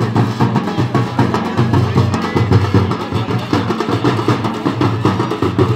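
Fast, rhythmic drumming that keeps on without a break.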